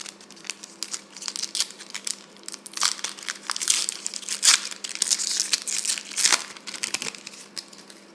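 Crinkling of a trading-card pack wrapper as a pack is opened and handled, a dense run of crackles that is busiest in the middle and stops about seven and a half seconds in. A faint steady hum runs underneath.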